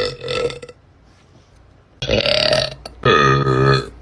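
A woman's deep, loud burps. One trails off in the first half second, then after a pause of over a second two more follow, about two and three seconds in, each lasting under a second.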